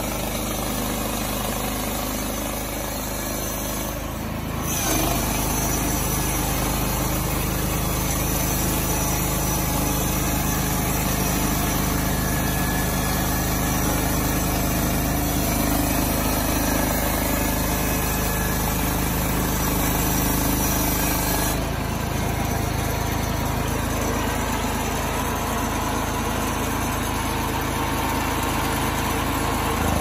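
Ducar SM310 portable band sawmill running steadily, its engine and band blade working through a board. The sound gets louder and brighter about four or five seconds in and drops back somewhat about two-thirds of the way through.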